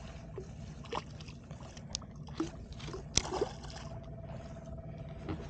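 Water lapping and sloshing against an inflatable boat's hull, with a few short splashes and knocks, the loudest about three seconds in, as a hooked queenfish thrashes at the surface.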